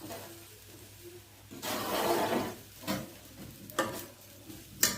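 Fish grilling after being turned over: a short burst of sizzling about two seconds in, then three sharp knocks of a utensil against the cookware.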